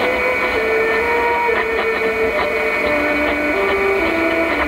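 Medium-wave AM station received on a car radio, playing a simple tune of single held notes that step between pitches about every half second. It sits over a steady static hiss and high, steady heterodyne whistles.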